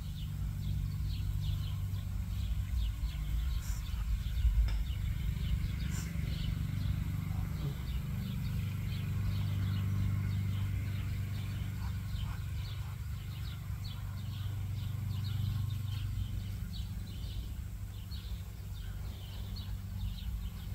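Outdoor backyard ambience: small birds chirping over and over in the background, over a steady low rumble.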